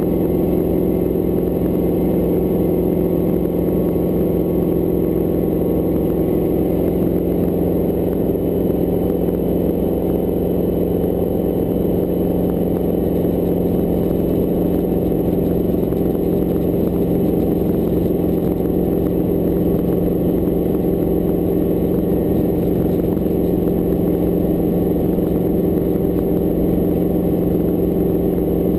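Hughes light helicopter's piston engine and rotor running steadily, a constant engine hum over a fast low beat from the blades.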